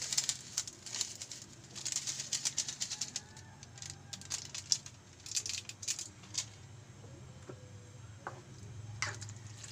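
Pancit noodles and soy sauce sizzling in a wok, crackling in bursts of about a second at a time over a steady low hum.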